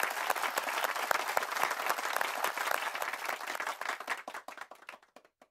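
Crowd applause, a dense patter of many hands clapping, fading out near the end.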